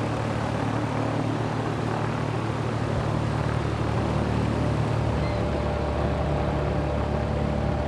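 Propeller aircraft engine running steadily, its pitch shifting about five seconds in.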